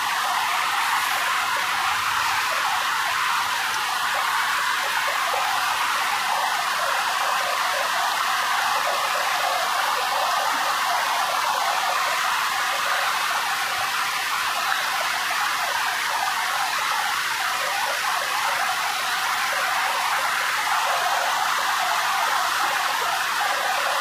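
Rocky forest stream running over boulders and small cascades: a steady, even rush of flowing water that stays constant throughout.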